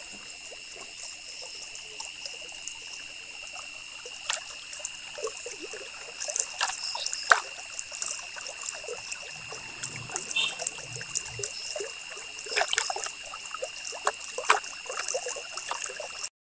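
Ballpoint pen scratching on paper in short, irregular strokes, over a steady high-pitched background hiss; the sound cuts off suddenly near the end.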